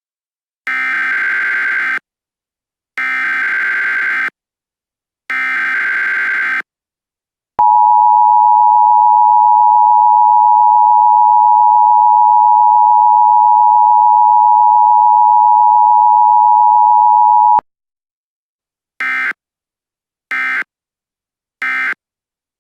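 Emergency Alert System alert sequence. It opens with three digital SAME header tones of about a second and a half each, with short gaps between them. Then comes the steady two-tone attention signal (853 and 960 Hz), the loudest part, held for about ten seconds and cut off sharply. It ends with three very short end-of-message data tones.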